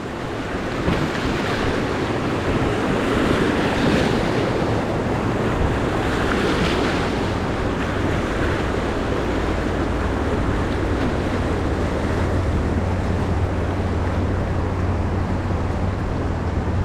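Whitewater of the Ocoee River rushing and splashing around a raft, a steady hiss of moving water, with wind buffeting the microphone and adding a low rumble.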